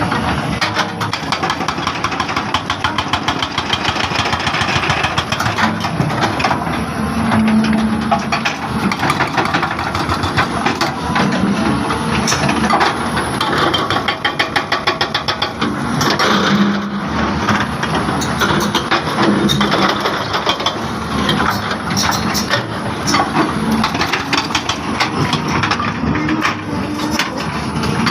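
Excavator's diesel engine running steadily, with many sharp knocks and rattles throughout.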